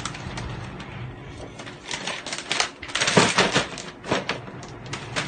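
Gift wrapping paper being torn and crumpled by hand: a run of crackling rips and rustles, loudest and densest about three seconds in.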